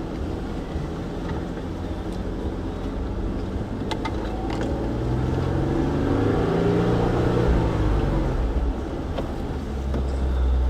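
Jeep engine running at crawling speed in four-wheel-drive low over rough trail, its revs rising and falling again in the middle, with a couple of sharp knocks about four seconds in and a deeper rumble near the end.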